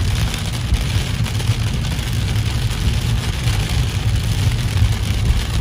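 Heavy rain falling on a moving car's roof and windshield, heard from inside the cabin as a steady hiss over a loud, steady low rumble of the car driving.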